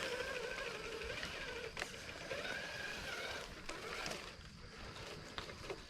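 RC crawler's electric motor and gearbox whining at a steady pitch as the truck drives, cutting out a little over halfway through, with a few sharp knocks.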